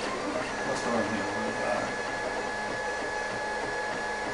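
Monoprice Maker Select 3D printer running a print: its motors give short stepped buzzing moves over a steady high whine. The owner calls these odd noises a resonance of something, not binding.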